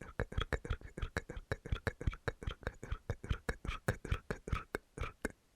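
Rapid ASMR mouth sounds: tongue and lip clicks with whispered consonant bursts, repeated about five to six times a second, very close to the microphone.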